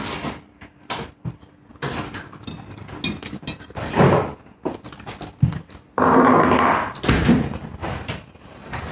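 Eating at the table: a metal fork clinks and scrapes on a ceramic plate, with mouth sounds of chewing, among scattered knocks and thuds. A louder noise lasting about a second comes about six seconds in.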